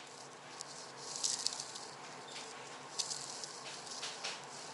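Faint crinkling and rustling from handling, with a few short, louder crinkles about a second in and near three and four seconds.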